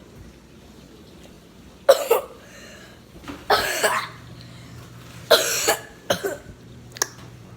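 A girl coughing four times in loud, short coughs over about four seconds, followed by a single sharp click near the end.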